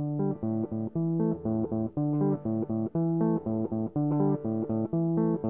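Background music: plucked guitar and bass guitar playing a repeating pattern of short notes.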